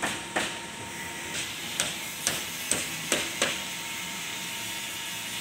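Hammer blows: about eight sharp strikes at uneven spacing in the first three and a half seconds, a few ringing briefly. After the strikes stop only a steady background hiss remains.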